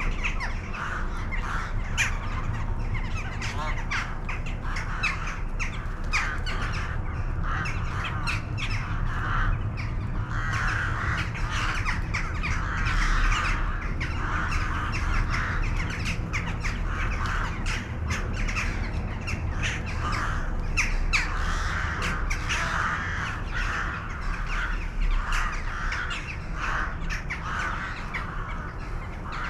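A flock of crows cawing, many harsh calls overlapping almost without a break, over a low steady rumble.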